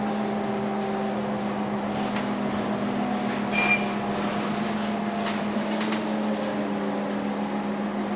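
Interior of a city bus under way: a steady engine and drivetrain drone with shifting higher whine, light panel and fitting rattles, and a brief high squeak about three and a half seconds in.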